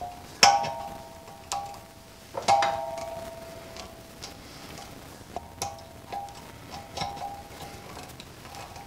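Adjustable wrench knocking and clinking against brass pipe fittings as they are tightened. There are a few sharp metal knocks, each ringing on briefly; the loudest come about half a second and two and a half seconds in, with lighter clinks later.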